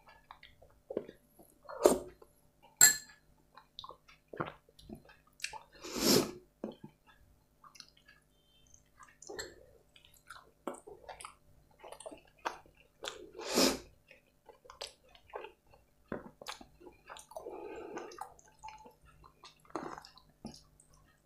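Close-up eating of butter chicken curry with rice: irregular wet chewing and lip-smacking clicks, with a few louder bursts. Near the end there is a soft squish, where rice and curry are mixed by hand.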